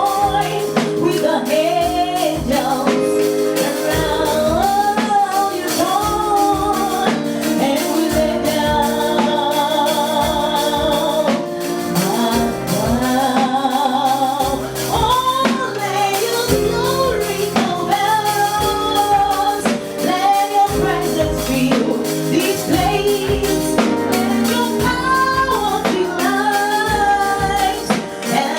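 Gospel praise-and-worship music: voices singing a melody over a band with tambourine and drums keeping a steady beat.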